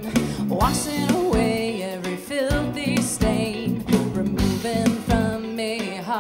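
Female vocalist singing a slow song live with band accompaniment: drums, bass and keyboard. Her held notes carry a clear vibrato.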